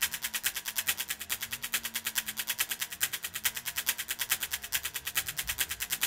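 Background music: a fast, even ticking beat over a low held note that fades out about halfway.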